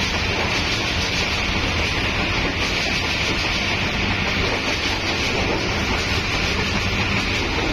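Steady rushing noise of a passenger train running at full speed, heard at an open carriage door: wheels running on the rails and air rushing past the opening.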